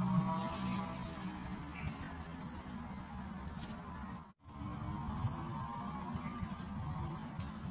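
A small bird's short, high, rising chirp, repeated about once a second, over soft background music. All sound drops out for a moment about halfway through.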